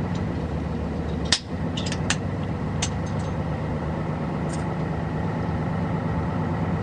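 Bus engine running steadily as the bus drives, heard from inside the bus. A few light clicks and knocks come between about one and a half and three seconds in.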